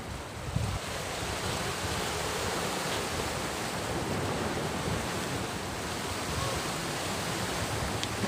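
Sea surf washing and breaking against a rocky shore, a steady rushing wash of waves.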